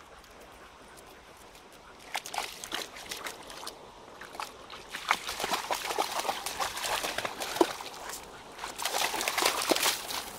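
A small dog splashing through shallow river water, its paws slapping and sloshing in uneven bursts that start about two seconds in and grow louder toward the end.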